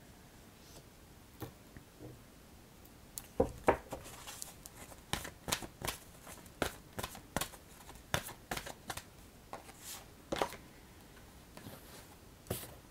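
Oracle cards being handled and shuffled: a run of irregular, crisp clicks and snaps of card stock, starting a few seconds in and stopping shortly before the end.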